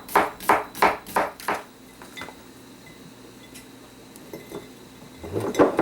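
Kitchen knife chopping on a cutting board in a steady rhythm of about three strokes a second, stopping about a second and a half in; a few light clicks follow, then a louder clatter near the end.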